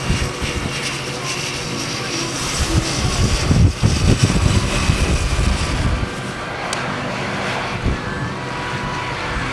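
Motor vehicle engine running steadily, with wind buffeting the microphone in gusts that are strongest in the middle.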